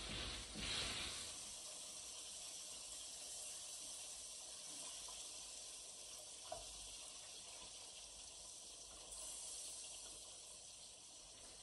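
Breaded white fish frying in shallow oil in a skillet: a steady sizzle, louder for a moment near the start as the pieces are turned, with a light utensil tap partway through.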